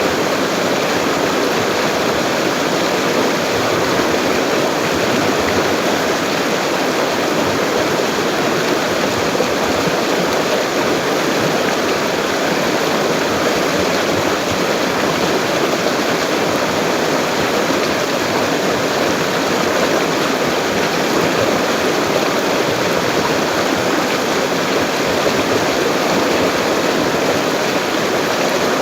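A full-flowing river rushing steadily, an even, unbroken sound of running water.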